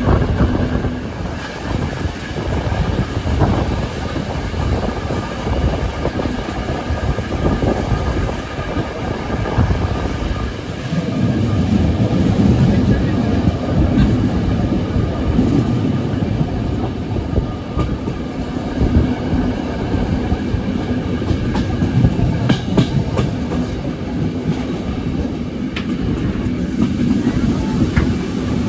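Rolling noise of a vintage Reichsbahn passenger coach heard from inside while the train runs: a steady rumble of wheels on the track, with occasional clicks as the wheels cross rail joints and points. It grows louder about eleven seconds in.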